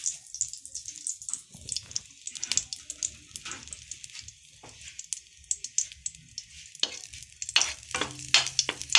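Ghee melting and sizzling in a hot kadai, with scattered crackles and spits. Near the end a spatula pushes through the melting ghee, and the crackling grows louder.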